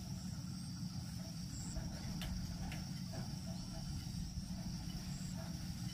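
Steady high-pitched insect chirring, crickets or cicadas, over a low steady rumble.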